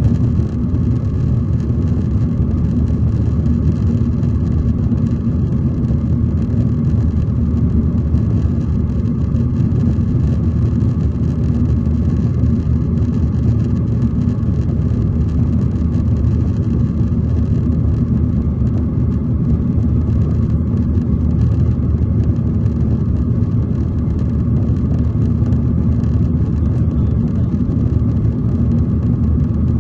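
Steady low rumble of jet engines and rushing air inside an airliner cabin in flight.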